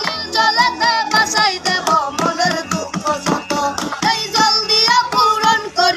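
A boy singing a Bengali song in a high voice with wavering, ornamented notes, over a steady beat of sharp hand-struck percussion.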